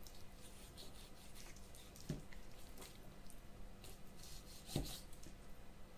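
A knife cutting raw silver carp flesh along the ribs on a wooden cutting board, making soft scraping and rubbing sounds. There are two dull knocks, about two seconds in and near five seconds, the second the louder.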